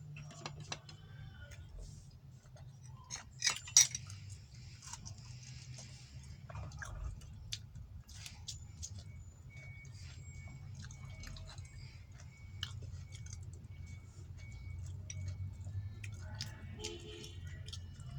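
Close-up chewing and eating sounds from a meal of rice with fried egg and fried eggplant, with scattered small clicks and a loud double knock about four seconds in. A steady low hum runs underneath.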